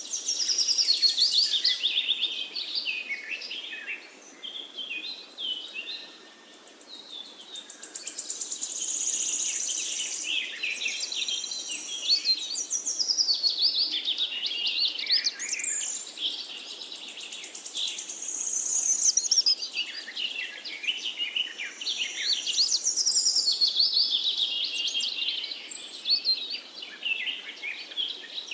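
Many birds chirping and singing at once: a dense chorus of rapid, high-pitched trills and short chirps that swells and fades in waves.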